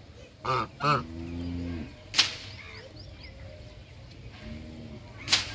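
Domestic geese honking twice in quick succession, then a low drawn-out call. Two sharp loud clicks or snaps cut in, about two seconds in and again near the end.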